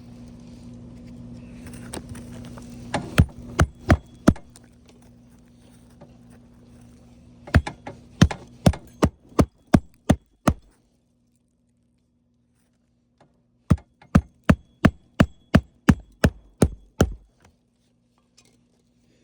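Hammer driving roofing nails into shingles: three blows, then two quick runs of blows at about three a second.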